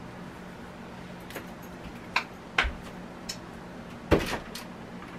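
Clicks and knocks of spice containers being closed and put away, about six in all, the loudest a thud about four seconds in, over a steady low hum.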